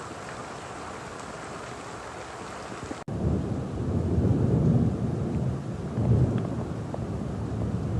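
Heavy rainstorm: a steady hiss of rain, then after an abrupt cut about three seconds in, a louder low rumble that swells and falls several times.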